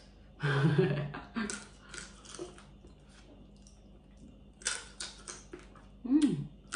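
Close-up eating sounds: sharp clicks and crackles as cooked blue crab is picked apart by hand and chewed, with a clustered run of them a little after the middle. A brief wordless voice sound about half a second in and a short falling one near the end.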